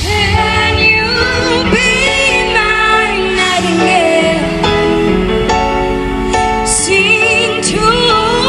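A female pop singer singing a ballad live in concert, with long held, sliding notes and vibrato over musical accompaniment.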